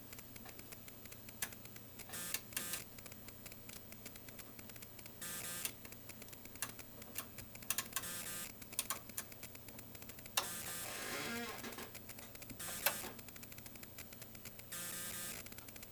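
Scattered sharp clicks and short rustling handling noises from equipment controls being worked by hand, over a faint steady low hum.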